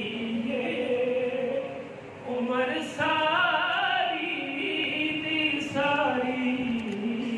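A man singing a Punjabi naat unaccompanied into a microphone, in long held, wavering melodic phrases with brief pauses for breath.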